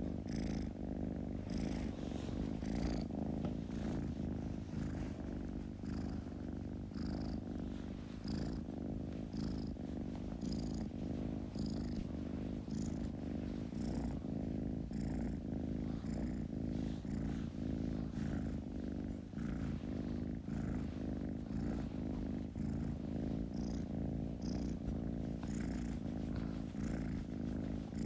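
Kitten purring steadily, a low continuous rumble.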